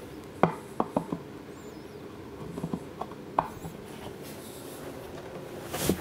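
Handling knocks and clicks as a bolt is fitted by hand into a wooden block at the bottom of a cardboard form tube: a quick run of sharp taps in the first second or so and two more a little after three seconds. Near the end comes a louder scraping rustle as the cardboard tube is lifted.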